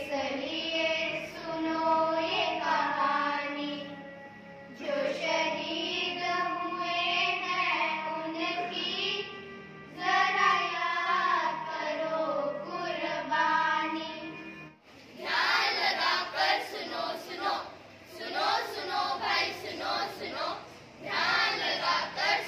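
A small group of schoolgirls singing together in unison, in long held phrases. About fifteen seconds in, the sound cuts to a different, choppier passage of children's voices.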